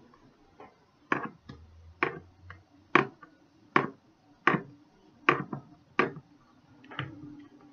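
About nine sharp knocks, roughly one a second, of a spatula rapped against the rim of a plastic mixing bowl to clear off thick soap batter.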